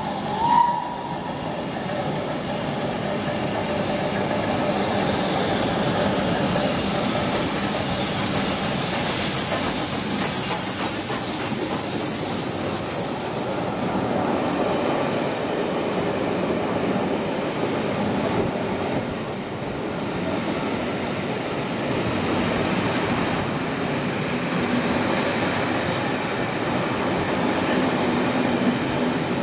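Steam-hauled passenger train, LNER B1 61306 Mayflower and its coaches, running through the station at speed: a continuous loud rumble and clatter of wheels on rail as the coaches pass. A short whistle sounds about half a second in.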